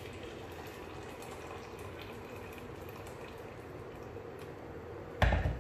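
Hot water pouring into a bowl of cocoa powder and hot milk, with a single sharp thump near the end.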